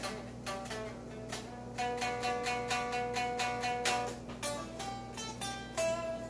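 Solo electric guitar being picked, single notes and then a stretch of quickly repeated picked notes over two held pitches in the middle, with a steady low hum underneath.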